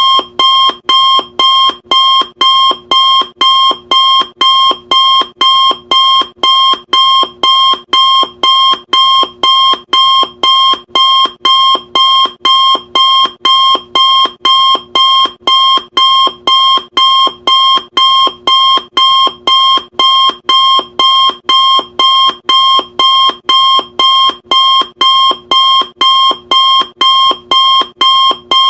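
Electronic countdown-timer alarm beeping: short, identical, high-pitched beeps repeating evenly at about two a second, loud and unchanging.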